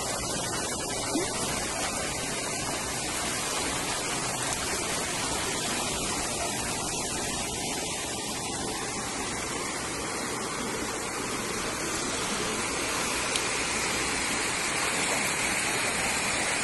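Floodwater rushing fast along a street, a steady rush of flowing water that grows a little louder near the end.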